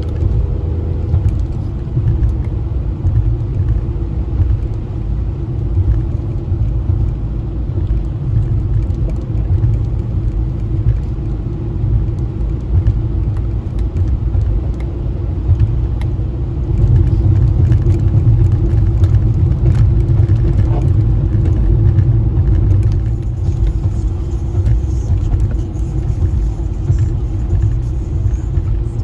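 Car's engine and road noise as it drives along: a steady low rumble, a little louder for a few seconds past the middle.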